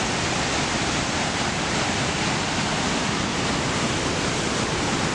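Steady, even roar of Victoria Falls' falling water and drifting spray.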